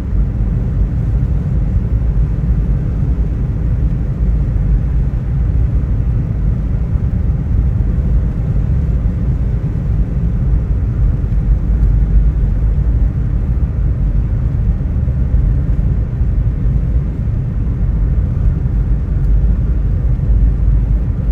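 Steady, loud low rumble with no clear pattern or pitch.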